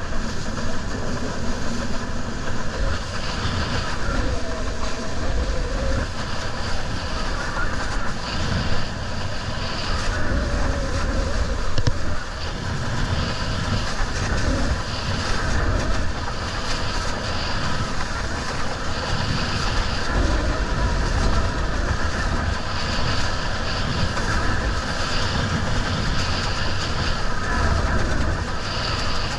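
Steady rush of wind buffeting the microphone and water hissing along a windsurf board planing on the sea, with a heavy low rumble throughout.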